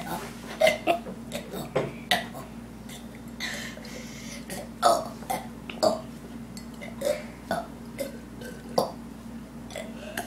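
A person burping on purpose, over and over: a quick run of short, separate burps, more than a dozen, about one or two a second.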